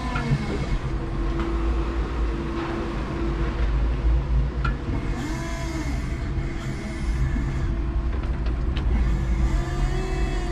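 Electric forklift running: a steady electric motor whine over a low rumble, with a few clicks and brief squeaks from the mast and cab.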